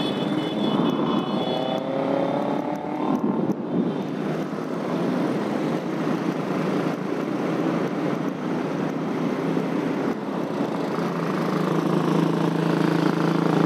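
Motorcycle on the move: steady wind and road rush with engine noise. An engine's pitch rises briefly about a second in, and a steady engine drone grows louder near the end.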